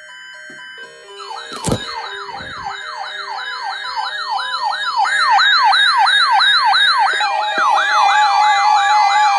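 Electronic siren yelping, a fast rising-and-falling wail about three times a second that starts about a second in, after a steady high tone and a few short beeps. A sharp thump sounds just after the siren starts, and steady tones join over it in the second half.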